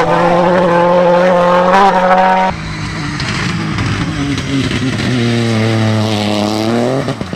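Rally car engine running hard at high revs, then an abrupt cut about two and a half seconds in to a quieter rally engine whose revs dip and climb again near the end.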